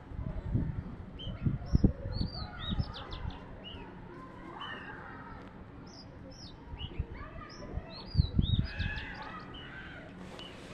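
Many small birds chirping, with short overlapping calls throughout. Loud low rumbling thumps come through in bursts over the first three seconds and again a little after eight seconds.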